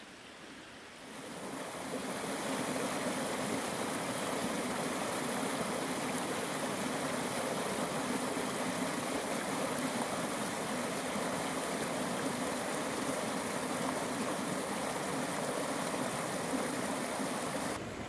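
Mountain stream rushing over rocks, a steady wash of flowing water that swells up about a second in and drops off suddenly at the end.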